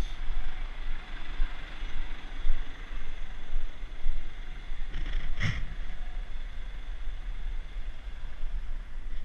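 Tractor engine running steadily beside a raised tipping trailer, with low wind rumble on the microphone. One short, louder knock comes about five and a half seconds in.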